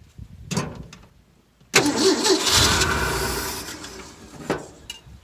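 1965 Ford fire truck's engine cranked on its starter and firing for about three seconds before dying away, with a clunk before it starts and a click near the end. The engine fires but will not keep running, with a fault in the ignition wiring.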